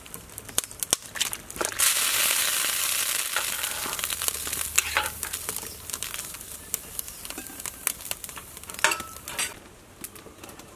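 Pieces of raw fish slid from a basket into a pot of boiling broth: a sudden rush of splashing and bubbling about two seconds in that slowly dies down. A metal ladle clinks and scrapes in the metal pot, and near the end the lid is set on with a few clicks.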